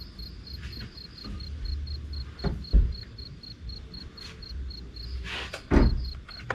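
A cricket chirping steadily, about four pulses a second, over gusty wind rumbling on the microphone. Two sharp knocks stand out, one about two and a half seconds in and a louder one near the end.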